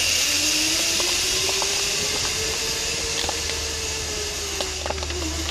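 Zipline trolley's pulleys running along the steel cable under a rider: a steady hiss with a faint whine that rises slowly in pitch and then eases back down, fading gradually as the trolley moves away.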